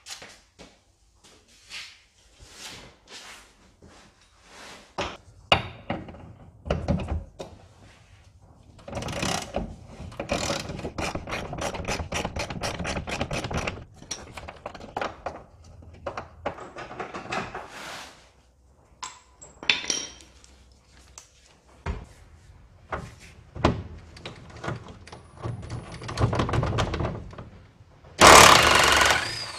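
Workshop knocks, clanks and footsteps on a concrete floor, then near the end a short, loud burst from an impact wrench undoing a bolt under the car.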